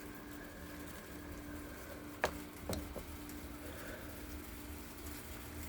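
Pea pods snapped off the vine by hand: two sharp snaps about half a second apart a little over two seconds in, with a fainter one just after, over a faint steady hum.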